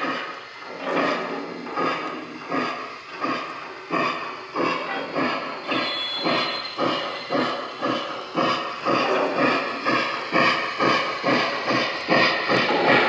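Lionel scale Polar Express Berkshire model steam locomotive's electronic sound system playing steam chuffs as the train pulls away, the chuffs quickening steadily as it gathers speed.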